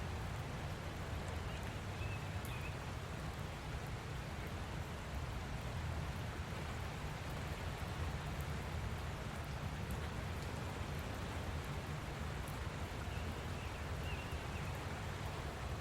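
Light rain falling steadily, with small drop ticks. A bird chirps faintly twice in the background, about two seconds in and again near the end.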